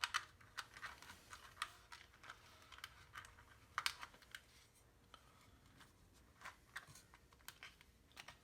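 Faint, irregular light clicks and scratches of fingers working a replacement surround under the edge of a 6.5-inch speaker cone and around the speaker basket.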